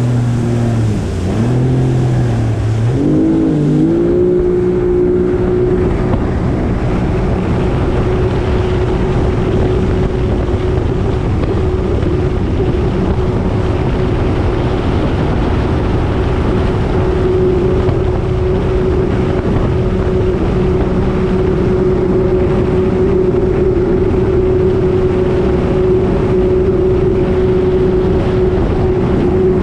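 Jet ski engine running low, then revving up about three seconds in and holding a steady higher pitch at speed, with a rush of wind and water noise over the microphone.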